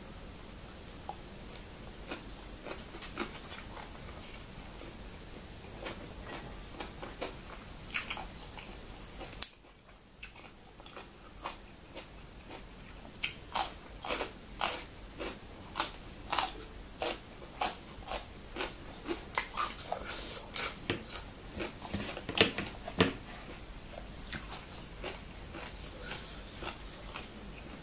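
Close-up eating sounds: a person biting and chewing crunchy raw vegetables with minced buffalo larb. Soft wet clicks at first, then after a brief hush a run of sharp crunches for about ten seconds that thins out near the end.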